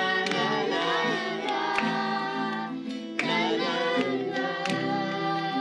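Acoustic guitar strumming a simple chord progression while several children sing along, making up a melody over the chords as a melodic hook.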